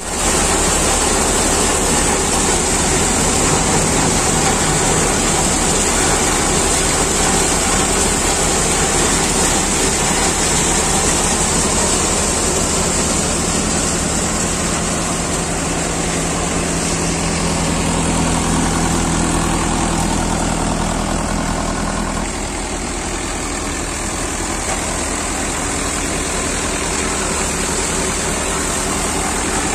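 Tractor-powered Jangeer thresher running steadily under load, with the drum and fan rumbling and hissing as crop passes through. The Mahindra Yuvo 575's diesel engine drives it through the PTO. The level drops slightly about 22 seconds in.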